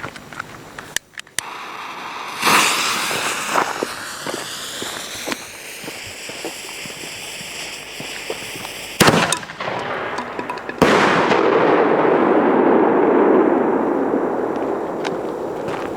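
Firecrackers going off: a few sharp cracks, then a hiss lasting several seconds. Two loud bangs follow, about a second and a half apart. After the second bang a loud rumble fades slowly.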